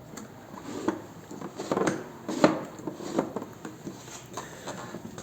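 Light metal clicks and taps from hand work on an aluminium motorcycle saddlebag latch lever and its screw, a handful of scattered strikes with the sharpest about two and a half seconds in.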